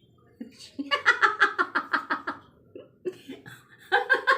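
A person laughing in quick, rhythmic 'ha-ha' pulses, about six or seven a second, in two bouts: one starting about a second in, and another starting near the end.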